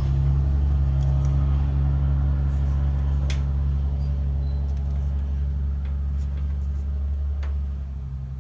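Steady low engine rumble that fades out near the end, with a few faint clicks of pliers working a plastic taillight bulb socket.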